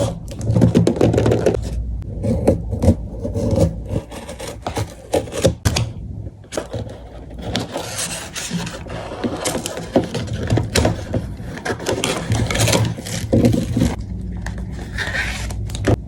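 Cosmetics packaging being handled and opened: irregular scraping, rubbing and clicking of cardboard and plastic, over a low steady hum.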